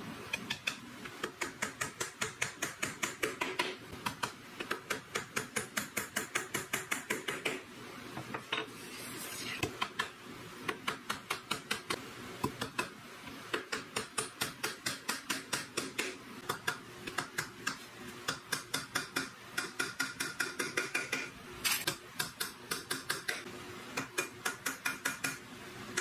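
Small hammer tapping thin nails into the corner joint of a wooden box, about four light, sharp blows a second in runs, with short pauses between nails.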